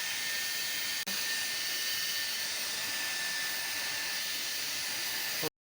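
Havells HD3101 1200 W hair dryer running: a steady blowing hiss with a faint high whine, a very short break about a second in, cutting off abruptly near the end.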